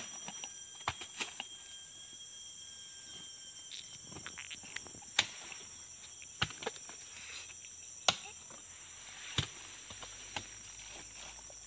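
Insects chirring steadily at a high pitch, with a series of sharp knocks as oil palm fruit bunches are spiked with a hand tool and dropped onto a motorbike's wooden carrier, the loudest about five and eight seconds in.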